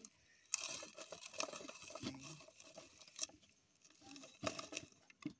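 Onion being chopped in a hand-operated plastic vegetable chopper: irregular crunching and crackling, with several sharp clicks.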